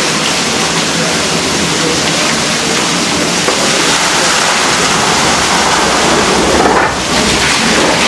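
Water pouring and splashing onto the buckets of a turning overshot water wheel: a loud, steady rush.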